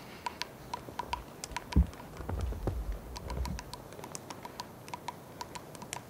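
Three-toed woodpecker pecking at a tree trunk: light, irregular tapping clicks, several a second. A single low thump about two seconds in, then a low rumble for about a second.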